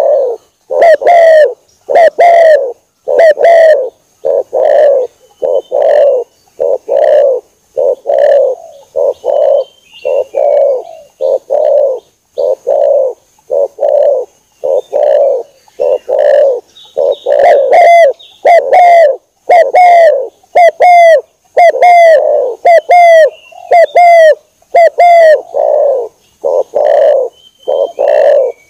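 Spotted doves cooing over and over in a loud, continuous series of low coos, roughly one a second with short pauses between phrases. This is a recorded lure call used to draw doves in for hunting. Faint chirps of a small bird sound in the background.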